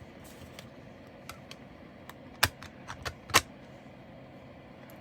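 Small clicks and taps from handling diamond painting drill bags and plastic storage containers, with two sharper clicks about two and a half and three and a half seconds in.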